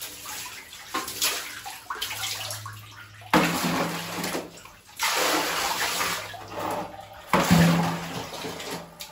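Water splashed in gushes while rinsing a bathroom: three loud, sudden splashes, about three and a half, five and seven and a half seconds in, over fainter running and dripping water.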